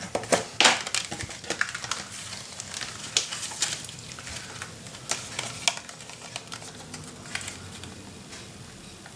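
Scrapbooking paper and small craft tools being handled: a run of rustles, light clicks and taps, busiest in the first few seconds and thinning out towards the end.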